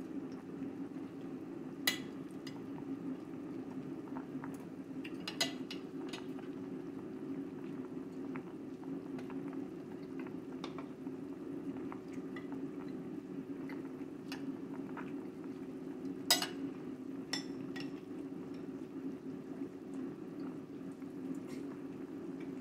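Large pot of soup boiling steadily on the stove, a constant bubbling, with several sharp clinks of a spoon and fork on a ceramic plate, the loudest about sixteen seconds in.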